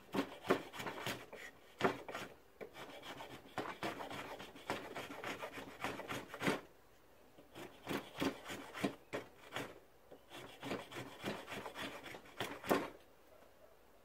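Homemade draw-knife, made from an old steel brake disc, scraping a wooden stick held in a vise: a quick run of short rasping strokes in three spells, stopping about a second before the end.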